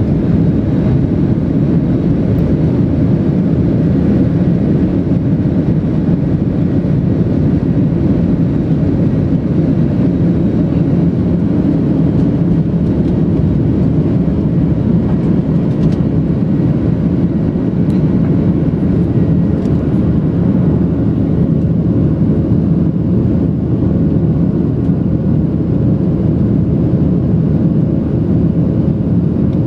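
Boeing 737-700 on its takeoff roll into lift-off, heard from inside the cabin: its CFM56-7B turbofan engines at takeoff thrust make a loud, steady, low roar.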